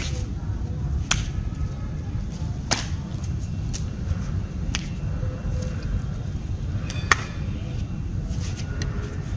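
A martial artist's strikes during a barehanded kung fu form, heard as sharp, short snaps at irregular intervals, about eight in all, the loudest about seven seconds in, over a steady low rumble.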